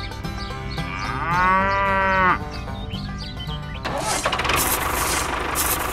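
Background music with a cow mooing over it, one long call of about a second that rises and falls. About four seconds in, a steady, rough engine-like running noise starts under the music.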